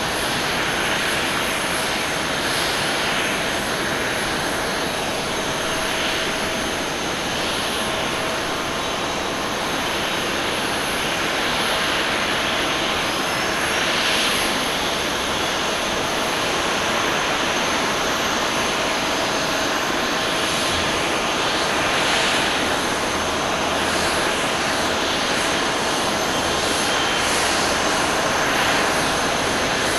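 Jet engines of an Airbus A330-200 airliner on final approach to land: a steady rushing jet noise with a faint high whine.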